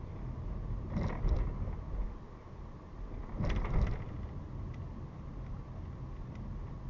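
Car driving on suburban roads as heard by a dashcam: a steady low rumble of road and engine noise, with two brief louder surges of noise, one about a second in and one about three and a half seconds in.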